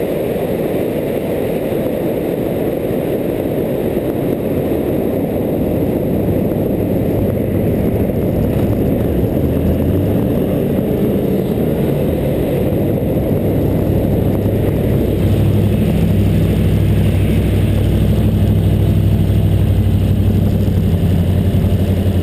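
Onboard sport motorcycle slowing into the pit lane: wind rush on the helmet or bike camera at first, then, after about six seconds, a steady low engine note at low revs takes over and grows stronger.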